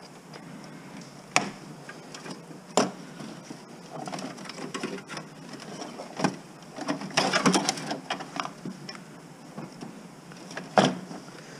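Handling noise from a sheet-metal computer case being stripped: a few sharp clicks and knocks, spaced a few seconds apart, and a patch of rattling and clattering about seven seconds in, as wiring and parts are pulled out.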